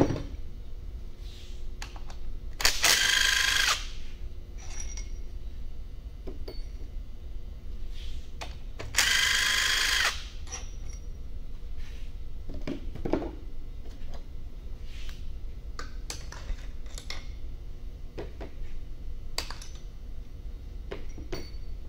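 Cordless impact wrench spinning out the cylinder head bolts of a jet-ski engine, in two runs of about a second each, one about three seconds in and one about nine seconds in, each a steady whine. Light metallic clinks of bolts, washers and tools being handled come between them.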